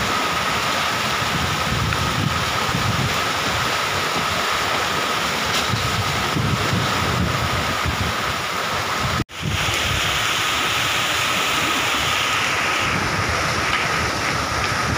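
Storm wind gusting over the microphone with rumbling buffets, over a steady hiss of heavy rain and choppy sea. The sound cuts out for an instant about nine seconds in, and the hiss is brighter for a few seconds after.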